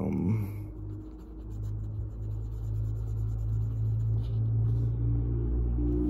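Cotton swab scrubbing tarnished brass hardware on a leather handbag: a soft, continuous scratchy rubbing over a steady low rumble.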